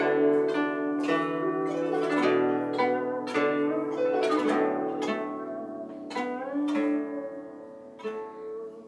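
Guzheng solo: single plucked notes in a slow melody, each ringing out, several bending and wavering in pitch as the left hand presses the strings beyond the bridges. The playing grows softer over the last few seconds.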